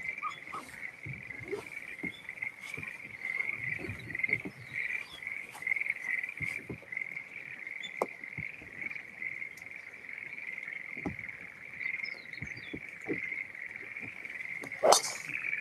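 A steady chorus of frogs calling all together, a dense fluttering trill held at one pitch. Scattered small clicks run through it, with one louder sharp crack near the end.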